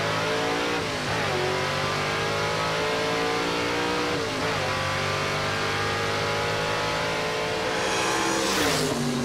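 1956 Chevy 210 drag car's engine at full throttle on a quarter-mile pass, climbing in pitch through the gears with upshifts about a second in and about four seconds in. Near the end the car passes with a loud rush and the engine note falls away.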